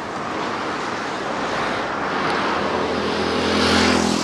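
Road traffic on a busy city street, vehicles going past, with one engine passing close and loudest near the end.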